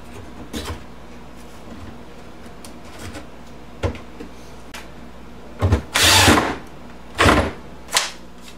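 Handling noises from cabinet work: a few sharp knocks and clacks, with a louder rattling scrape lasting about half a second around six seconds in, over a steady low electrical hum.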